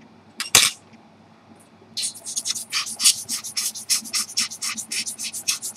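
Rubber hand air blower squeezed to blow dust off watch parts: two strong puffs of air about half a second in, then a rapid run of short hissing puffs, about six a second, from about two seconds in.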